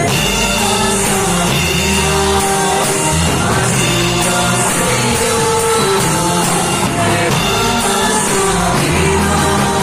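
A live church worship band plays a song with singing over it, a guitar among the instruments and sustained bass notes beneath.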